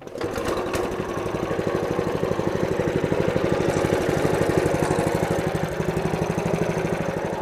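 Garlic and shallot grinding machine with stone grinding discs switched on and running empty. It starts abruptly and within about a second settles into a steady running sound with a fast, even pulse.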